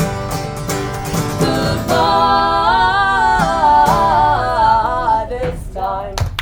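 Live folk-rock band: guitar strumming steadily with a voice singing a melody on long held notes over it from about a second and a half in, gliding up and down; the voice drops away about a second before the end.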